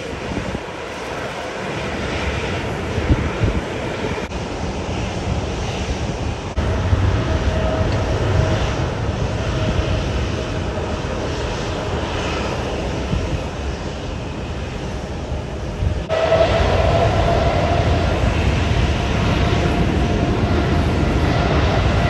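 Jet airliner engines on the runway: a steady rushing roar with a faint whine, changing abruptly a few times and growing louder about 16 seconds in, where the whine comes out more clearly.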